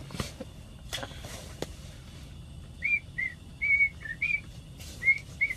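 A person whistling a tune in a string of short, clear notes that step up and down in pitch, starting about three seconds in after a few light clicks.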